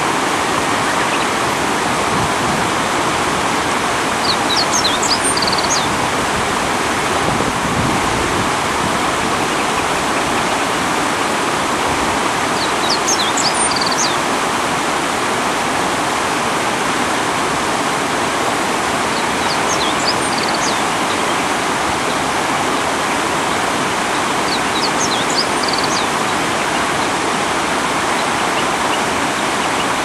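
Steady rush of high river water pouring over a concrete weir. A small bird's short burst of high chirps comes through it every several seconds.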